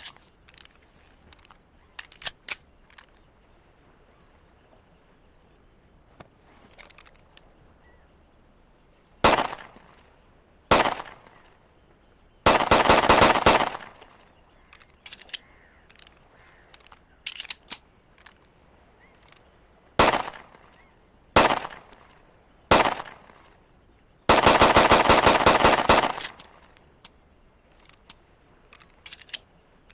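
Browning Hi-Power pistol firing: single shots spaced a second or more apart, and twice a fast string of rapid shots lasting about a second and a half, with small clicks between the shots.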